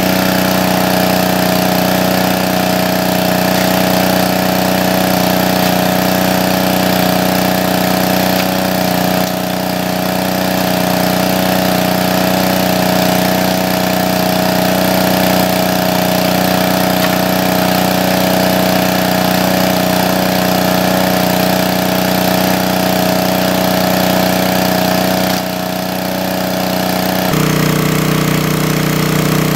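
Small engine-driven water pump running steadily, pumping water out of the stream; its note changes slightly near the end.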